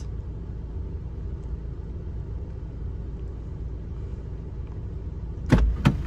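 Car engine idling, heard from inside the cabin as a steady low rumble. Near the end come two sharp clunks as the car door is opened.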